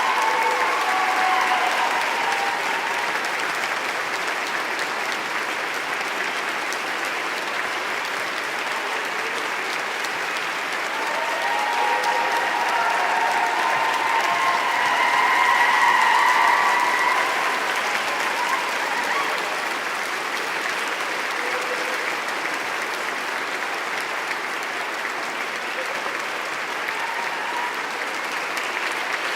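A large crowd applauding steadily, with a few voices cheering over the clapping, swelling a little about halfway through.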